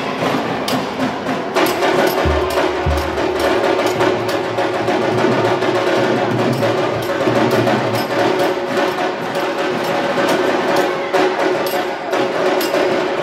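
Drums and percussion playing a fast, steady rhythm, with a held tone underneath and two deep thumps about two seconds in.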